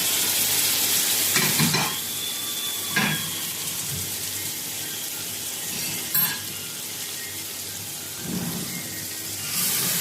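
Food frying and sizzling in a pot, with a few clinks of a utensil as it is stirred. The sizzle is louder for the first two seconds, quieter in the middle, and rises again near the end.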